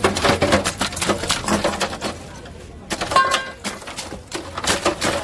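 A block of ice being broken up with a pointed metal spike: a fast, irregular run of sharp cracks and knocks, thinning out for a moment about halfway through.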